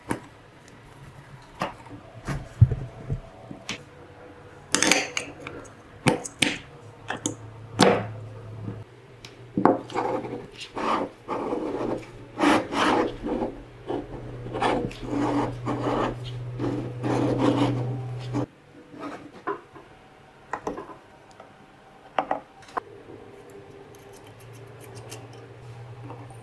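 Hands handling and assembling a miniature model engine kit: scattered clicks and taps of small parts, with a busy stretch of rubbing and scraping in the middle.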